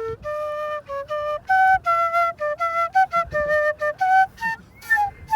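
A tune played on a small flute: a quick run of short notes stepping up and down, some repeated, with a slightly longer note near the end.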